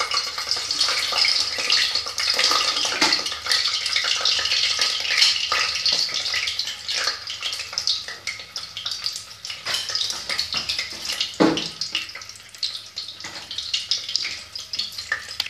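Boiled eggs, slit with a knife, frying in hot oil in the base of a pressure cooker: dense sizzling and crackling spits that thin out a little near the end.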